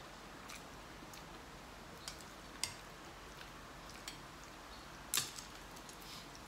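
Spoons, forks and chopsticks clinking against ceramic soup bowls: a scatter of short, sharp clicks, the loudest about five seconds in.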